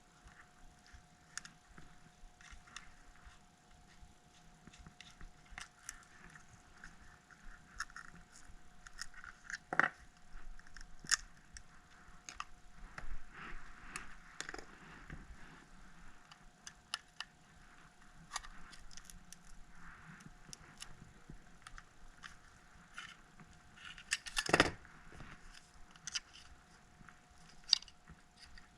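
Small clicks and scrapes of a metal spudger prying under an iPhone 6s battery to free its stuck adhesive tab, with a few sharper knocks, the loudest about two-thirds of the way through. A faint steady tone runs underneath.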